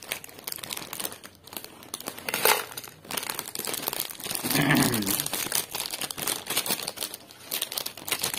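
Crinkly foil bag of Lay's potato chips being shaken and crumpled as the chips are emptied out onto a plate, with sharp crackles throughout and one loud crackle about a third of the way in.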